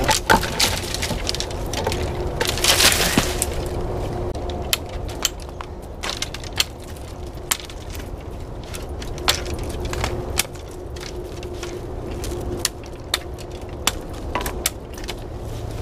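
Dry branches and twigs crackling and snapping as brush is dragged through, loudest about three seconds in. After that come scattered single sharp knocks and snaps as twigs are trimmed off a sapling with a hatchet.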